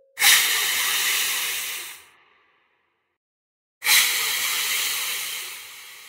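Two loud hisses, each starting abruptly. The first lasts about two seconds and cuts off; the second comes about a second and a half later and fades away slowly.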